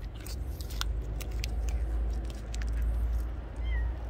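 Cat biting and chewing at a treat held out by hand: a run of sharp clicks over a low rumble. A kitten gives one short, faint mew near the end.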